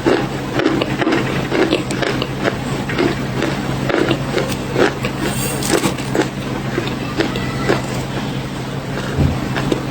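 Close-miked crunchy chewing of nutty chocolate cookie bars: a dense run of short, irregular crunches over a steady low hum.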